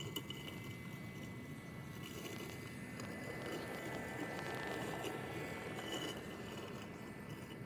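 Husqvarna 450XH Automower robotic lawnmower running, heard faintly as a steady thin whine over a low rushing noise, with a few light ticks.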